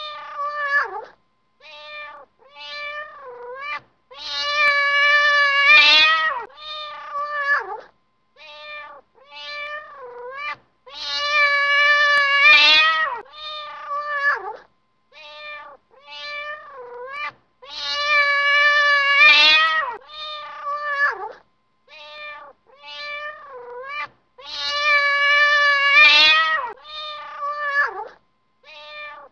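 A cat meowing in a repeating sequence: several short meows, then one long drawn-out meow, the whole pattern coming round about every seven seconds, four times.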